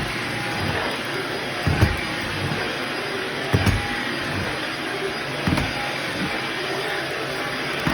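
Shark upright vacuum cleaner running on a shag rug: a steady rushing motor-and-suction noise, with low thuds about every two seconds as it is pushed back and forth.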